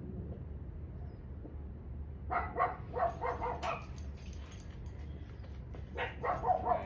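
A dog barks in two runs of quick, short barks, the first about two seconds in and the second near the end, over a steady low hum.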